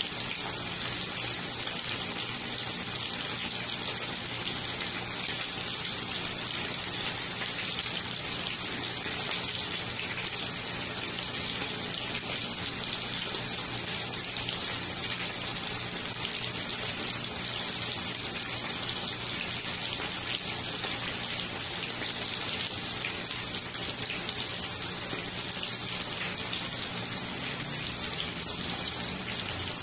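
Chicken pieces shallow-frying in hot oil in a pan, giving a steady sizzle that doesn't let up, with a faint low hum underneath.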